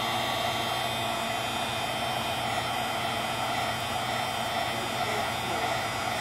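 Handheld heat gun running steadily: an even rush of blown air with a faint steady motor whine. It is warming glued phone parts to soften the adhesive so they can be peeled off.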